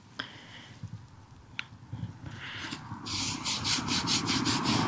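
Fingers rubbing dirt off a small dug-up metal find, a tiny piece of jewelry, to show its markings. A couple of faint clicks, then from about three seconds in a quick scratchy rubbing of about five strokes a second.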